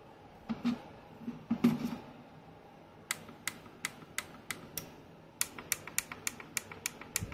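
Handling knocks on the plastic housing of a Travor TL-120S LED video light, then a run of sharp little clicks from about three seconds in. The clicks start sparse and come quickly near the end, about six a second, as the light's control is worked. The light is faulty: it keeps blinking and won't change brightness.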